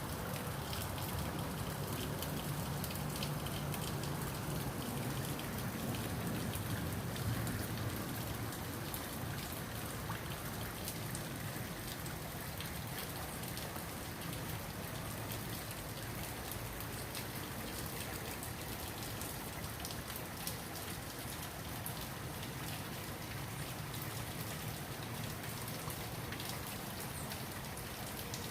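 Falling water splashing steadily: a dense, even hiss made of many small drops, with a little more low rumble in the first few seconds.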